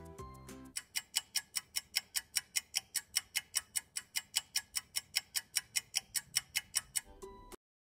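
Fast, even clock-like ticking at about five ticks a second, a timer effect counting the wait. Cheerful music plays briefly before the ticking starts and again just before the sound cuts off.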